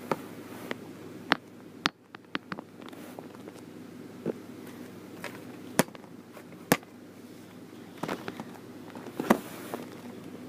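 Handling noise: scattered sharp clicks and knocks, a dozen or so at irregular intervals, as the tablet and camera set-up is fiddled with by hand, over a faint steady hum.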